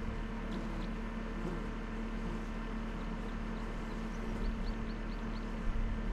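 Dacia Solenza engine running steadily with an even hum, with a quick run of five short high chirps about four and a half seconds in.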